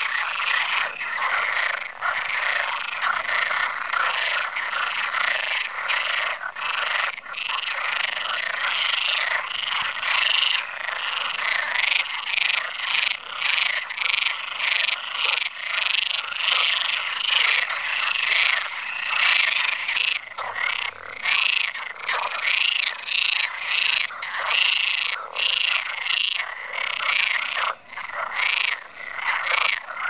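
A chorus of Iberian water frogs (Perez's frogs) croaking, with many rasping calls overlapping and repeating without a break.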